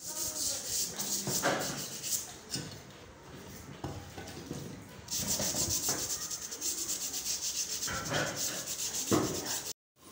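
Hand rubbing down of a cast-iron sewing machine body casting, quick back-and-forth scraping strokes, several a second, easing off in the middle and picking up again. A few dull knocks of the casting being shifted come in between.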